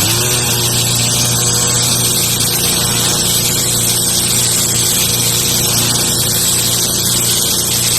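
Pressure washer running steadily: a constant motor drone under the hiss of the high-pressure water spray.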